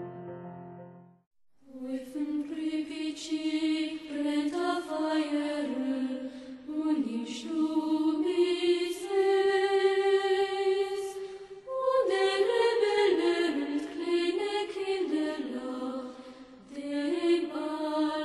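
Piano title music fades out. After a brief silence, slow chant-like vocal music begins, a voice singing long held notes in unhurried phrases.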